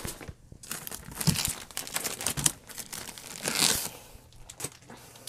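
Crinkling and rustling of cross-stitch kit packaging being handled, with a couple of soft bumps, loudest just after the middle.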